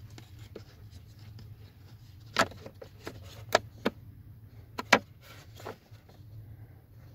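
Plastic cabin-filter cover being handled and pushed into its housing under a VW Passat B8 dashboard: about five sharp plastic clicks and knocks between about two and five seconds in, two of them close together near the end, over a steady low hum.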